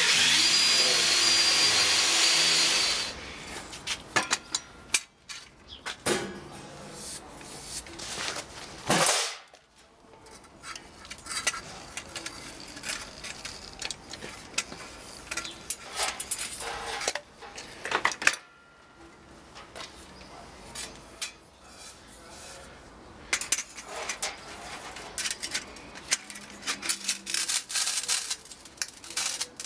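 Cordless drill whining up to speed and boring through sheet metal for about three seconds, then stopping. After it come scattered knocks, scrapes and clanks of steel flue pipe and fittings being handled on a metal-topped workbench.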